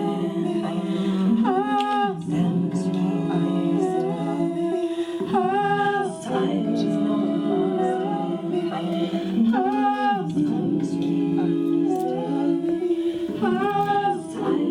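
Wordless a cappella singing: several layered voices hold steady notes, and a higher sliding phrase returns about every four seconds.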